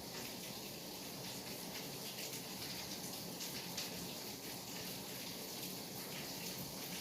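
Steady rainfall: an even hiss of rain with many small drop ticks scattered through it.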